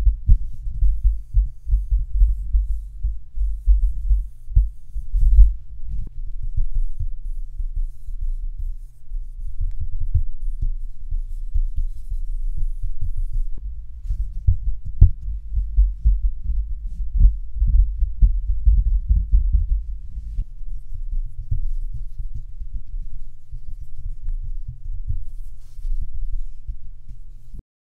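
Boom-pole handling noise heard through the microphone at the tip of the pole as fingers tap and slide up and down the K-Tech Mighty Boom and Panamic Maxi poles: a dense low rumble of rapid thuds, with fainter tapping and sliding on top. It is vibration carried through the pole into the mic capsule, and a Re:Pose acoustic noise reducer is fitted between mic and pole for part of the takes.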